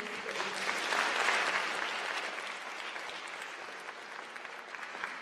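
Audience applauding, swelling about a second in and then gradually tapering off.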